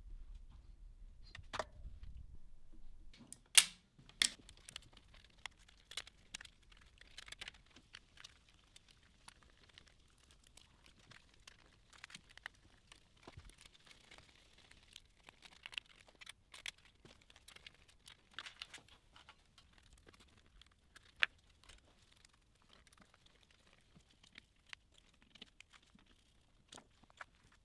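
Scattered small clicks, taps and rustles of hands wiring up switching power supplies: a small screwdriver working on screw terminals and wires being handled. One sharper click stands out a few seconds in.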